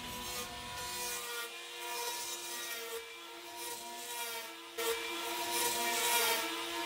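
Electric hand planer running with a steady whine as it shaves a foam surfboard blank, the cutting hiss under it. It gets louder about five seconds in.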